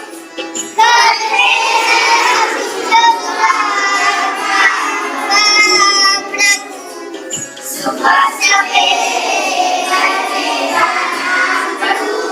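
A song with children's singing voices over instrumental music, in phrases that waver in pitch.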